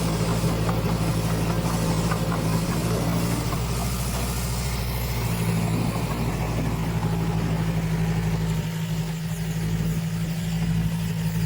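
Heavy diesel engine of an earthmoving machine running steadily with a deep hum; its note shifts briefly about four seconds in, then settles again.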